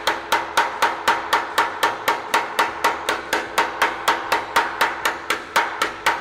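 Hand hammer beating a curved sheet-metal flange over a clamped hammer-forming template. The blows come steadily at about four a second, each one ringing. The edge of the hammer strikes close to the bend line to set a crisp bend.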